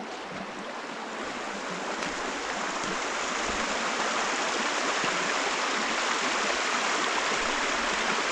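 Creek running high after rain, a steady rush of water over stones that grows gradually louder.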